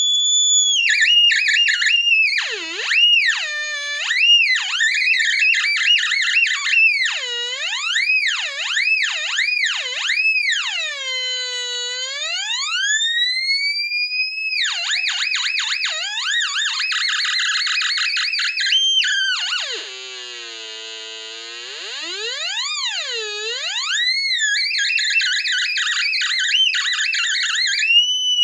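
NE555 astable square-wave oscillator buzzing through a small loudspeaker, its pitch set by a photoresistor: the tone swoops up and down like a theremin as a hand shades the light. Long falling and rising glides alternate with fast warbling stretches, and a little past two-thirds of the way through it drops to a lower, quieter buzz.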